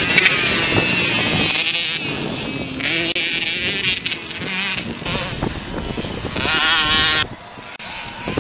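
Small engines of mini motocross bikes revving hard, the pitch climbing and falling repeatedly as the riders accelerate and shift. The sound drops off suddenly about seven seconds in.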